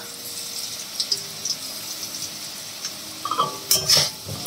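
Potato chunks sizzling steadily in hot oil in a metal kadai. A little after three seconds in, a metal spatula starts scraping and stirring against the pan.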